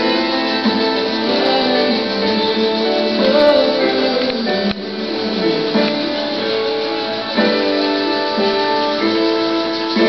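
Music played on acoustic guitar, with plucked and strummed chords.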